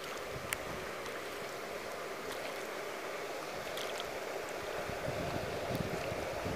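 Swimming-pool water gently splashing and lapping around a swimmer as she floats and starts a slow breaststroke, a steady wash with a few faint drip-like clicks.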